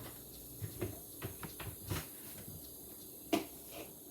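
A scattered series of light taps and clicks from handling the portable fridge, with one sharper knock about three seconds in.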